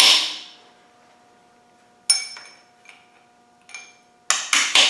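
A hammer tapping over the locking-tab washers on the timing-gear bolts of a Land Rover 2.25 engine: light metal-on-metal taps with a ringing tail. A quick run of taps dies away at the start and a single ringing metal clink comes about two seconds in. A new run of taps, about three or four a second, starts near the end.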